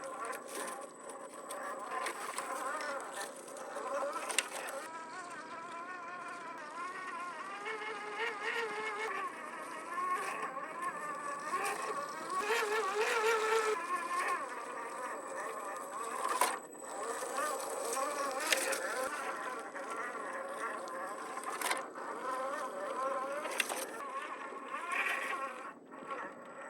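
Electric motor and gear drivetrain of a 1/10 scale RC4WD Toyota Xtracab crawler whining as it is driven over obstacles, the pitch rising and falling with the throttle. A few sharp knocks come through as it goes.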